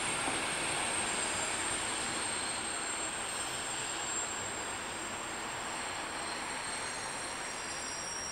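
Diesel passenger train moving off through a station yard: a steady rumble with a thin high whine over it, slowly getting quieter.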